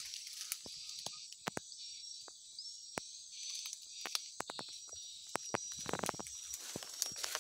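A steady, high chorus of insects with faint repeated chirps, over crackles and snaps of someone stepping and brushing through dry palm litter and undergrowth, with a louder rustle about six seconds in.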